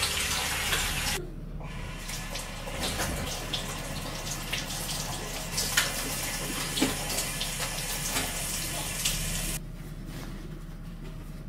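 Water running from a kitchen tap into a sink, with a few light clinks of washed kitchenware. The flow is strongest in the first second, then softer, and dies away near the end.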